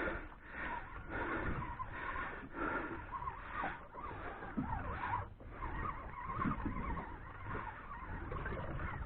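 Fishing reel being wound in while a hooked fish is fought, heard as a hissing whirr that swells and fades about once a second, over low wind rumble on the microphone.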